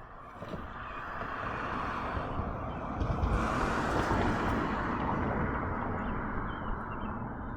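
A vehicle passing by on the road: its noise swells, peaks about four seconds in and fades away.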